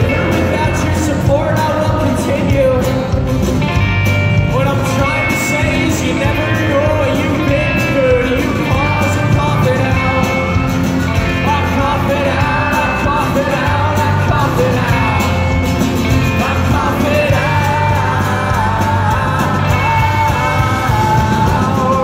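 Live rock band playing loud and steady: drums, bass, and electric and acoustic guitars, with singing over the top, heard from the arena floor.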